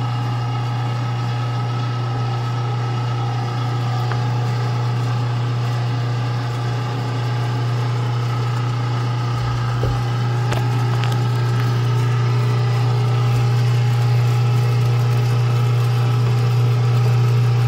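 Cabela's Carnivore #12 3/4 hp electric meat grinder running steadily with a strong low hum while grinding beef for the second time.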